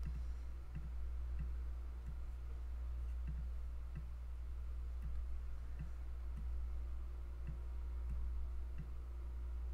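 Faint, evenly spaced ticks, about three every two seconds, over a steady low electrical hum.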